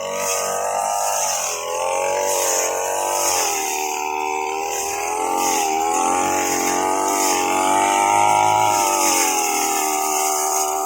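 Grass-cutting machine engine running steadily, its pitch rising and falling slowly as the load on it changes.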